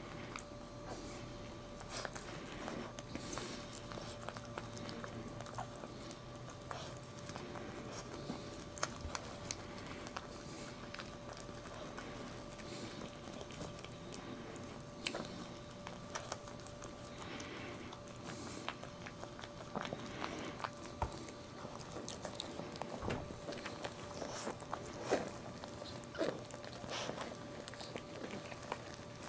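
Maltese mother dog licking and chewing at her newborn puppy: scattered wet clicks and smacks, with a faint steady hum underneath.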